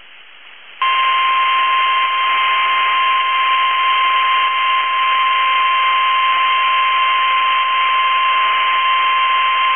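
NOAA Weather Radio's 1050 Hz warning alarm tone, heard through a weather radio with a hiss of static beneath it. It is one loud, unbroken steady tone that starts just under a second in and cuts off suddenly at the end. It signals that a warning broadcast, here a severe thunderstorm warning, is about to be read.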